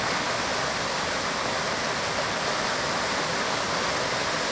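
Waterfall plunging into a pool of white water: a steady, even rush of falling and churning water.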